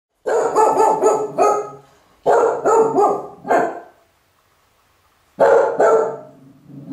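A dog with kennel cough barking in three volleys of quick barks, about four, then four, then two, with short pauses between.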